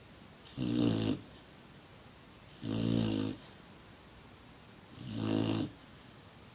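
A six-month-old black Labrador snoring in its sleep: three snores about two seconds apart, each lasting around half a second.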